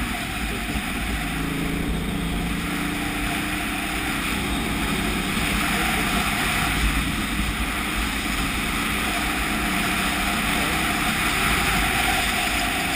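Motorcycle riding sound: wind rushing over the microphone with the KTM 990 Adventure's V-twin engine running steadily underneath.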